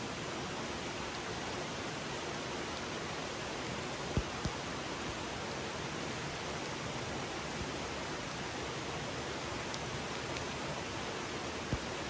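Steady, even rush of a flowing mountain stream. Two soft thumps come about four seconds in and another near the end.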